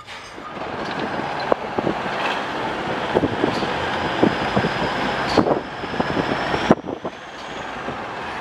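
A car driving, with steady road and wind noise and scattered knocks and rattles; it drops quieter for the last couple of seconds.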